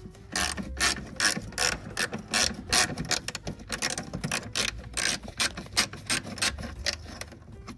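Hand socket ratchet clicking as it is swung back and forth, undoing a bolt that holds a Mercedes S124's front bumper: a long run of quick, even clicks, several a second.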